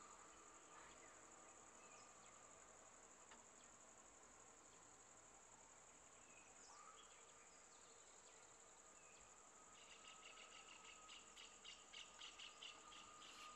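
Faint forest insects: a steady high-pitched drone, with a run of quick chirps, about four a second, starting near the end.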